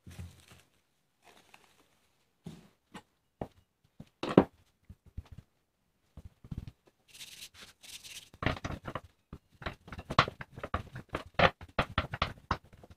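Cling film crinkling as it is peeled off a ball of fresh pasta dough, then scattered knocks and one loud thump on a wooden pastry board. A short hiss of flour being scattered follows, and from about eight and a half seconds a wooden rolling pin rolls the dough out on the board in a fast run of knocks and rattles.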